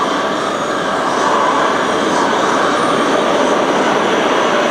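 New York City Subway R160 train pulling into an underground station: a loud, steady rumble of wheels on rail, with a faint tone running through it.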